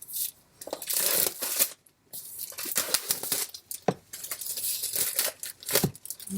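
Plastic and paper packaging being torn open and crinkled by hand, in repeated rustling bursts with a few sharp clicks.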